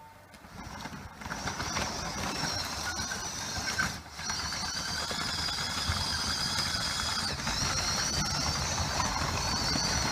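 Small electric gear motors of an RC Caterpillar 963 track loader whining at high pitch over a steady mechanical rattle. They cut out briefly about four seconds in, then run on.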